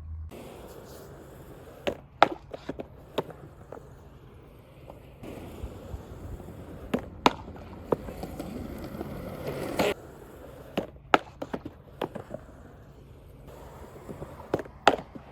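Skateboarding: wheels rolling on concrete with a steady hiss, broken by a dozen or so sharp wooden clacks of the deck popping and landing. The loudest clack comes about two seconds in.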